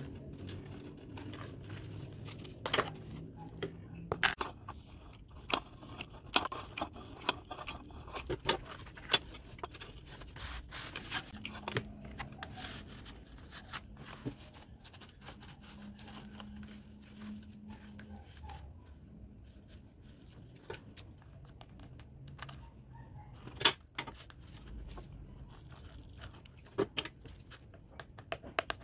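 Hands pressing and working a woven placemat strip onto the side of a cardboard basket: scattered small clicks, crackles and scrapes, with one sharp click about two-thirds of the way through.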